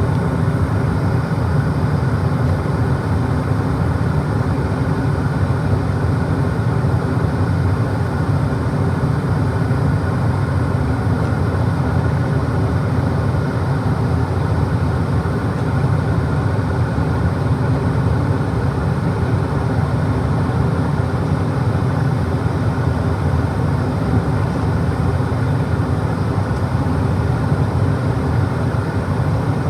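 Comfortmaker 80 gas furnace running, a steady even noise with most of its weight low down that does not change.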